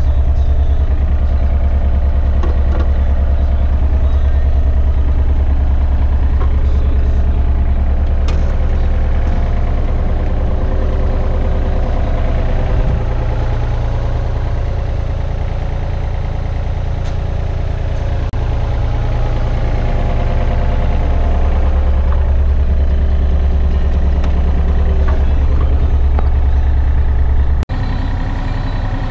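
Mini excavator's diesel engine running steadily, a strong low drone with a few light clicks and knocks as the machine works.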